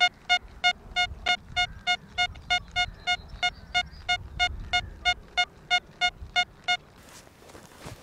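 XP Deus II metal detector, on its general program with the second audio setting, giving its target signal on a low-conductive target: a run of short, identical mid-pitched beeps, about three a second, that stop near the end.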